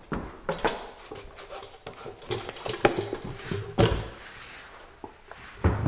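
Footsteps and thumps on a wooden workbench top as a person walks across it and steps down, a handful of separate knocks spread through the few seconds.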